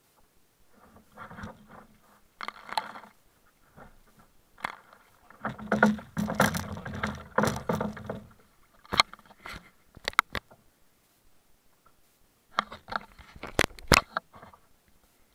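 Handling noise on a kayak-mounted action camera: knocks, scrapes and rubbing as a hand grips and fiddles with the camera housing, loudest in a dense patch around the middle, then a run of sharp clicks near the end as fingers work the camera.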